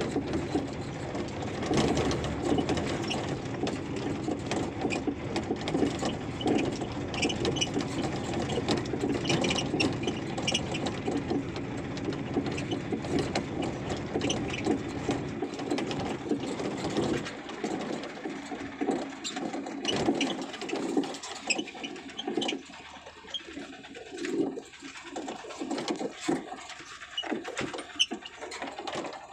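Mahindra Jeeto mini truck running along a rough dirt road, heard from inside the cab: engine rumble with a steady busy rattling. About sixteen seconds in the low rumble falls away and lighter, uneven rattling carries on.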